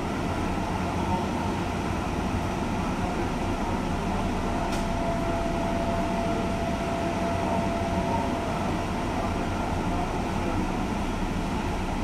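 Steady hum of a stopped electric commuter train's air conditioning and auxiliary machinery while it stands at a platform waiting to depart. A faint thin tone comes in for a few seconds in the middle.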